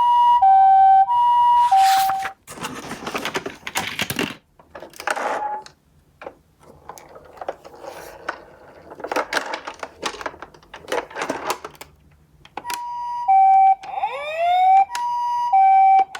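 Two-tone hi-lo ambulance siren, the Japanese 'pee-po' pattern, alternating between two pitches for about two seconds. Then comes uneven clattering and rattling as toy minicars roll and knock down a cardboard slope. Near the end the hi-lo siren returns, with a fast rising wail repeated over it several times.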